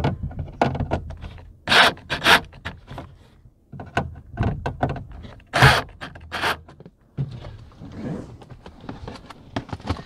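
Black+Decker cordless drill with a Phillips bit driving a self-tapping screw into a plastic roof latch, in short trigger bursts: a pair about two seconds in and another pair around six seconds. Between the bursts there are clicks and rubbing from the parts being handled.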